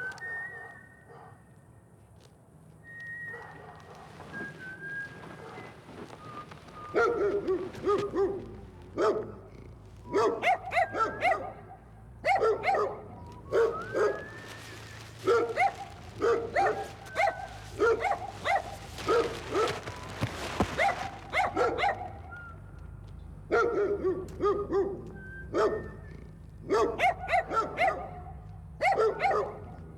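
A dog barking repeatedly in runs of several barks, starting about a quarter of the way in, over a low steady hum.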